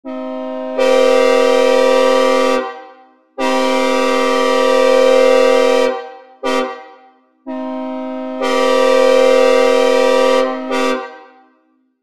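Synthesized recreation of a Nathan K5HL five-chime locomotive air horn sounding a long, long, short, long pattern, the grade-crossing signal. The first and last long blasts start softer and swell about a second in, and each blast trails off in reverb. The chord sits ambiguously between major and minor.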